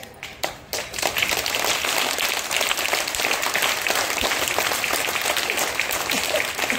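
A group of young children clapping their hands: a few scattered claps, then steady applause from about a second in.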